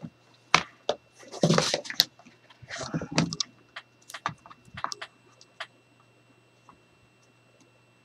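Chipboard and paper being handled and shifted on a cutting mat: rustling, sliding and scattered sharp clicks and taps, loudest about one and a half to three seconds in. The handling stops about six seconds in, leaving only a faint steady hum.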